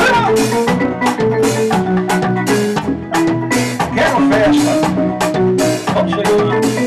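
Instrumental band break: a synthesizer keyboard playing a bright melody over a steady drum and percussion beat, with no vocals.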